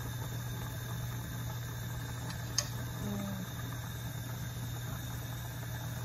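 A pot of potatoes at a rolling boil on a gas burner, a steady low hum and hiss as they parboil, with one sharp click of a fork against the pot about two and a half seconds in.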